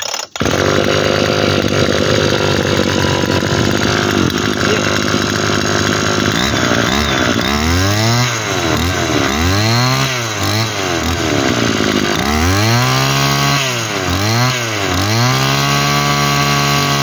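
Komatsu G3K 34cc two-stroke brushcutter engine running, steady at low speed at first. From about seven seconds in it is revved up and back down with the throttle about five times, the last rev held high near the end.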